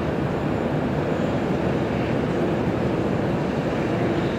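Steady outdoor rumble and hiss with no distinct events.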